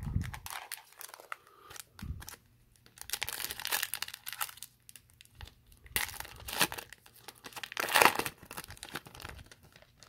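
Foil trading card pack wrapper being torn open and crinkled by hand, in irregular crackling bursts that are densest in the middle and latter part.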